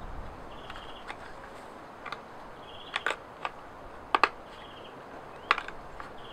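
Sharp clicks and crackles of stiff birch bark being bent and pressed in the hands, loudest a pair of snaps about four seconds in and another about five and a half seconds in. A short high chirp repeats about every two seconds in the background.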